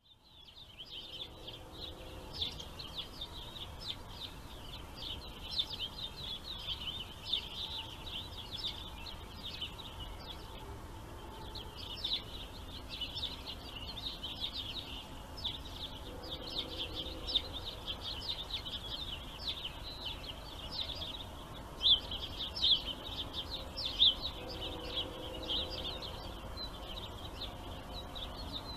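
Many small birds chirping at once, a dense run of short high chirps that never stops, over a steady low outdoor background hum.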